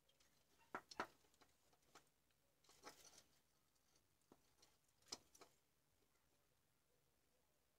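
Near silence with a few faint clicks and a brief rustle from hands handling wire leads and the small circuit board of a compact fluorescent lamp. The sharpest clicks come about a second in and about five seconds in.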